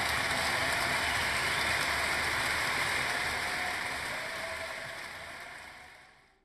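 A steady, even hiss like falling rain that fades away over the last three seconds.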